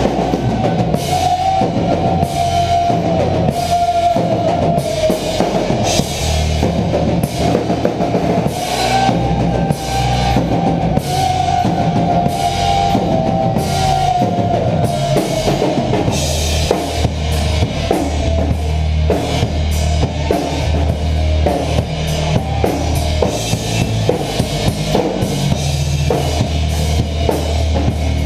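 Live horror punk band playing: a pounding rock drum kit with bass drum and cymbals under electric guitar, heard from a camera strapped to the guitar itself, with held guitar notes ringing out at times.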